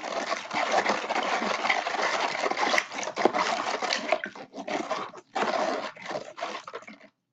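Hands squishing and stirring wet, watery sand, a dense wet crackling that breaks up over the last few seconds and stops near the end.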